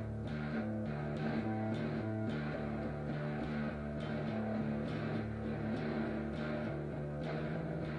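Instrumental music: plucked guitar with a bass line, notes changing at a steady pace with sharp regular attacks.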